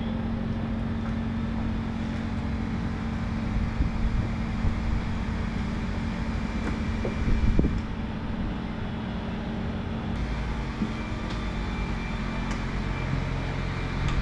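Steady mechanical drone from a motor held at a constant speed, with no revving, and a few light knocks about seven seconds in.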